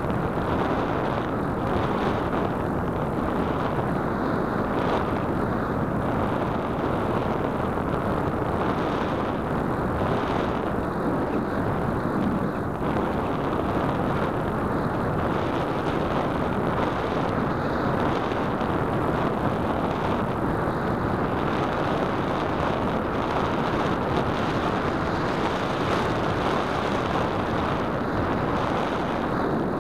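Steady rush of airflow over the onboard keychain camera's microphone as the Radian glider flies with its motor off, the folded propeller giving no whine.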